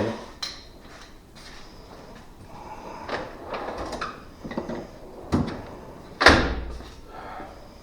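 A few knocks and scrapes, with one loud thump about six seconds in.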